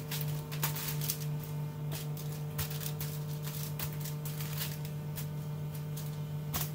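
Aluminium foil crinkling and rustling in short irregular crackles as whole fish are handled and shifted on a foil-lined baking tray, over a steady low electrical hum.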